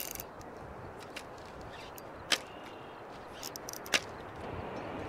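Two sharp clicks about a second and a half apart, with a few small ticks just before the second, over steady wind noise: a light spinning rod and reel being handled at the water's edge.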